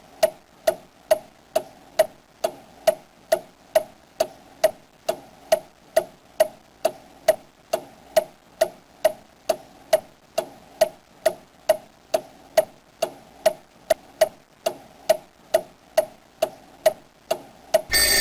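Steady, even ticking, about two ticks a second, each tick with a short ringing tone. Near the end a louder, different sound cuts in.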